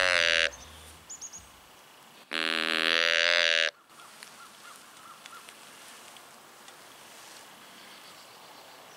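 A hand-held deer call blown by mouth. One long call ends just after the start, and a second long call of about a second and a half, holding a steady pitch, begins about two seconds in. Faint woodland background follows.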